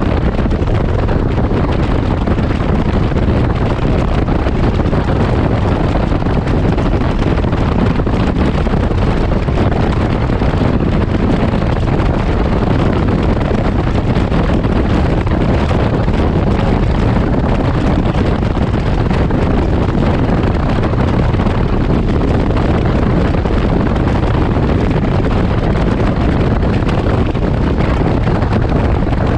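Steady wind rush buffeting the microphone on a Can-Am Ryker Rally three-wheeler at highway speed, with the bike's engine and road noise running underneath.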